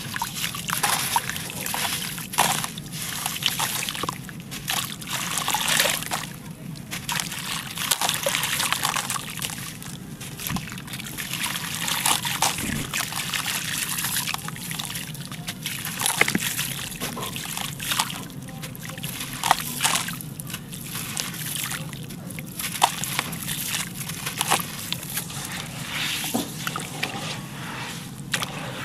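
A wet, gritty black concrete block crumbling apart in hands over a basin of water, with lumps and grit splashing and trickling into it. Continuous sloshing and crunching with many small sharp clicks.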